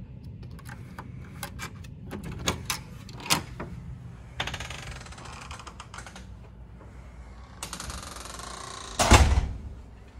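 Hotel room door being unlocked with a keycard and opened: a run of sharp clicks and clacks from the card lock and lever handle, then a heavy thud near the end as the door shuts.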